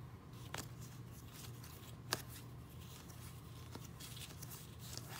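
Tarot cards handled and moved from hand to hand, faintly, with a few short clicks of card against card, the sharpest about two seconds in, over a low steady room hum.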